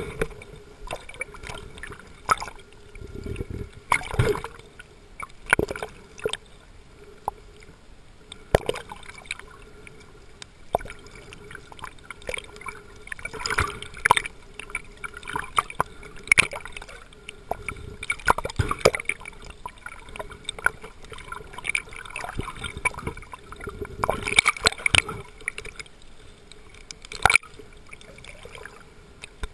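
Water sloshing and gurgling around a camera held underwater by a swimmer, with irregular sharp clicks and knocks throughout and a faint steady hum.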